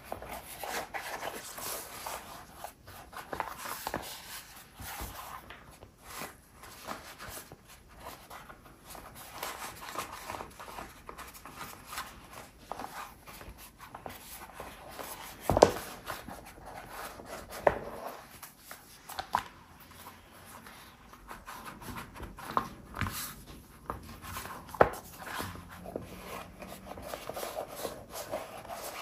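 Hand work at a leatherworking bench: materials rubbing and rustling as they are handled, with scattered sharp clicks and taps and one louder knock about halfway through.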